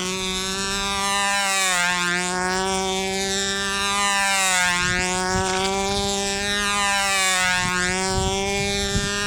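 O.S. 10LA two-stroke glow engine of a Phantom control-line model plane running at full speed as the plane flies its circle. The buzzing note rises and falls once a lap, roughly every three seconds, as the plane passes. A few low bumps come near the end.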